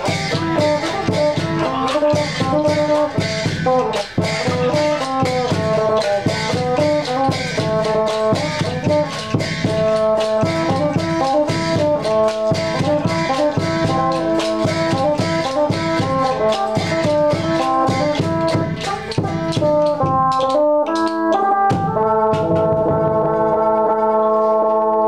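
Mak kap kaep, Isan wooden clappers, clacking together in a quick, steady beat over a wind instrument playing a melody in chords. About 21 seconds in the clapping stops and the instrument holds a chord.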